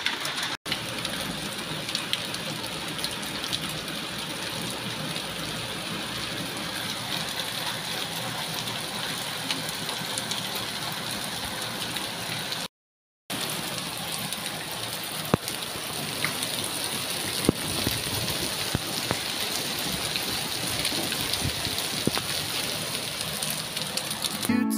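Heavy rain mixed with small hail falling on balcony tiles and street paving: a steady, dense hiss with scattered sharp ticks. It cuts out briefly twice, about half a second in and near the middle.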